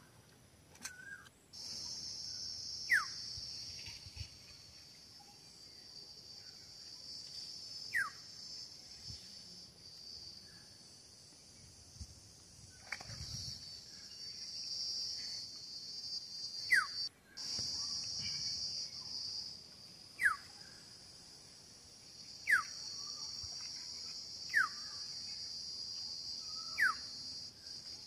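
A steady, high insect buzz of cicadas or crickets sets in about a second and a half in and drops out briefly past the middle. Over it, a bird gives a short, falling call, repeated every two to five seconds.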